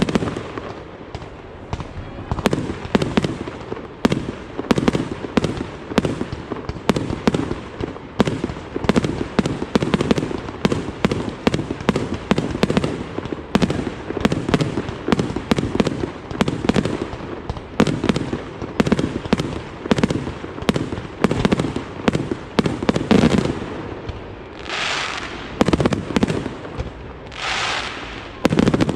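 Fireworks display: a rapid, dense string of launches and bursts, several a second, that thins near the end into a few longer, rushing bursts a couple of seconds apart.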